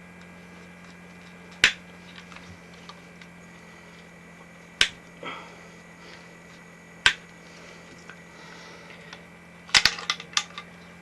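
A few sharp clicks and taps from handling a car subwoofer and its packaging: three single clicks a few seconds apart, then a quick cluster of them near the end, over a steady low hum.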